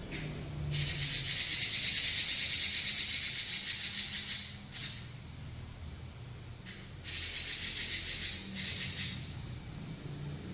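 Pekin robin (red-billed leiothrix) singing long, fast rolling trills: one lasting about three and a half seconds, then after a pause two shorter ones, over a low steady hum.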